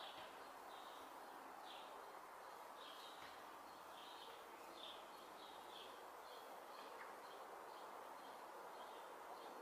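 Faint outdoor ambience: a bird's short high chirps repeating about twice a second over a soft steady hiss.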